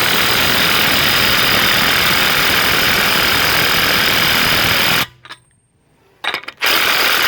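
Ridgid Octane R86011 half-inch mid-torque cordless impact wrench hammering on a rusty 30 mm axle nut in speed 2, breaking it loose. It runs for about five seconds, stops with a couple of short blips, then starts hammering again near the end.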